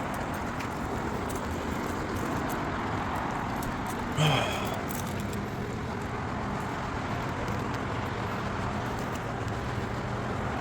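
Steady outdoor background noise, with one brief sharp sound about four seconds in.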